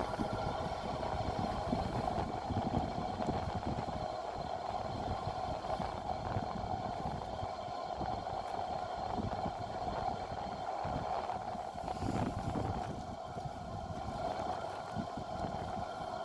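Large fan, about 90 cm across, driven from a UPS's 60 Hz output, running steadily: a constant mid-pitched hum over a rumble of moving air.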